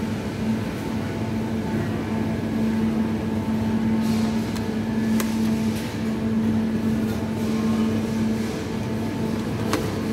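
Steady machine hum of supermarket refrigerated display cases and air handling, with one strong steady tone. Two sharp clicks sound, about five seconds in and near the end.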